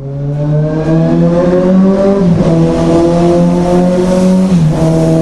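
A motorcycle engine pulling under acceleration. The pitch rises slowly, then drops sharply twice, about two seconds in and near the end, as it changes up through the gears.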